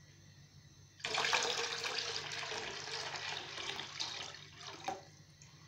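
Milk poured in a steady stream from a plastic jug into a wok of milk, starting suddenly about a second in and tapering off after about four seconds.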